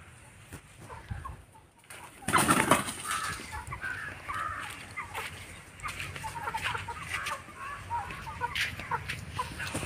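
Young Peru-cross chicken pullets clucking and peeping in many short calls, with a loud rustling burst about two seconds in.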